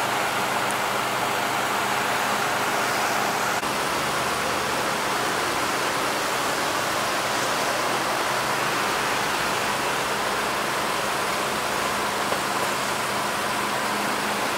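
Steady engine drone with a low hum, over a continuous wash of motorway traffic noise.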